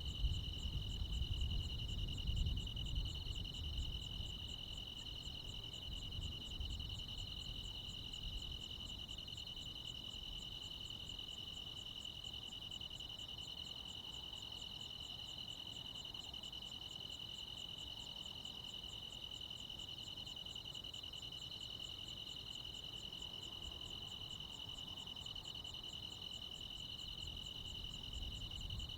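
Crickets and other insects chirring in chorus: a steady high trill with a finer, faster pulsing buzz above it. A low rumble lies underneath in the first several seconds and fades out by about eight seconds in.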